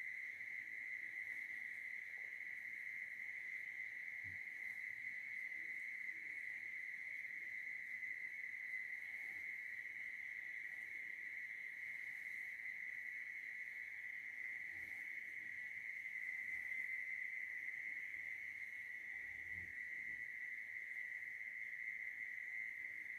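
Faint, steady high-pitched drone of a night insect chorus, unbroken throughout.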